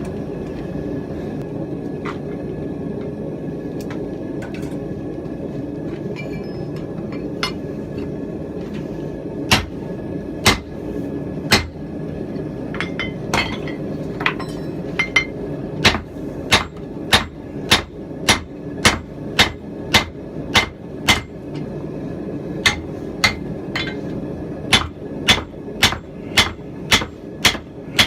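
Hand hammer blows on hot steel against an anvil, a blacksmith forging a rounding hammer head: a few scattered light taps, then sharp ringing strikes coming in from about ten seconds in and settling into a steady rhythm of about two blows a second, with a brief pause near the end. A steady rushing noise runs underneath.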